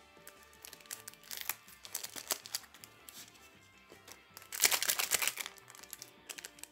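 Foil sticker packets crinkling and rustling as they are cut with scissors and handled, in short crackles early on and a loud burst of crinkling about halfway through. Quiet background music underneath.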